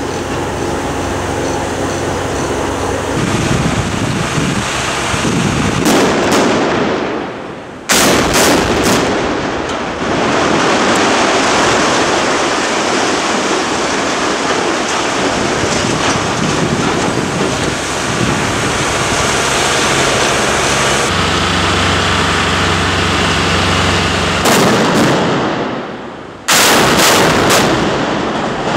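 Explosives felling of structural-steel steam boilers: blasts and the loud rumbling crash of the collapsing steel and debris. The sound drops and starts again with a sudden loud blast about 8 seconds in and again near the end.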